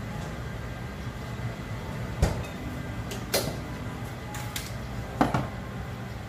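About five sharp knocks and clatters as things are handled and set down on a kitchen counter, the loudest about two seconds in and about five seconds in, over a steady low hum.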